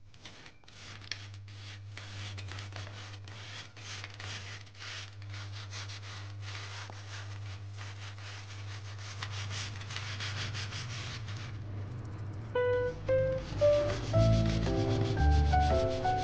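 A rubber-gloved hand scrubbing burnt-on crust off the underside of a frying pan with The Pink Stuff cleaning paste, in quick repeated scrubbing strokes. About twelve seconds in, background music with a melody of short notes comes in and grows louder.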